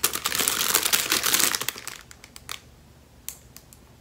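Clear plastic bag crinkling as it is handled, dense and loud for about two seconds, then a few light clicks.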